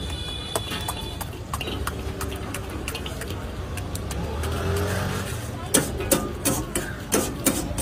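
Steady low rumble of a gas burner under an iron wok. From about six seconds in comes a run of sharp clicks as a green capsicum is sliced by hand over the wok.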